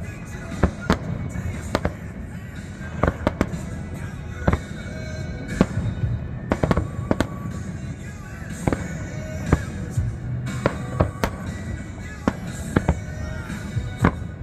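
Aerial fireworks shells bursting in a display: sharp bangs every second or so, some in quick clusters, with music playing underneath.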